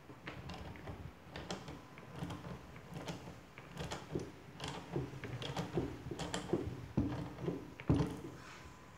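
Irregular metallic clicks and knocks, about one or two a second, from handling a coil spring compressor clamped on a car's front strut and coil spring.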